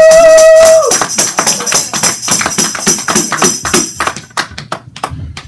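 A loud held note ends about a second in. Then a tambourine is shaken and struck in a quick, even beat of about four strokes a second, which thins to a few scattered hits and fades near the end.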